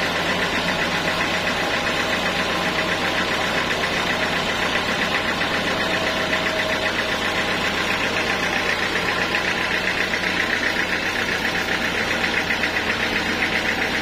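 Sawmill band saw cutting lengthwise through a teak beam: a steady sawing noise over the constant hum of the mill's drive, with a fast, even pulsing that grows a little stronger in the second half.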